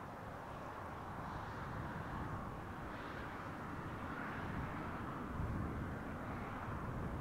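Distant steam locomotive, 60163 Tornado, a three-cylinder Peppercorn A1 Pacific, working a train: a steady rushing exhaust with a low rumble that swells and eases.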